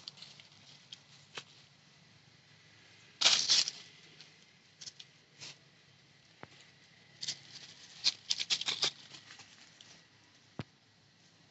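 Monkeys moving about and handling things: scattered light taps and clicks, a louder scratchy rustle about three seconds in, and a quick run of clicks a little after eight seconds.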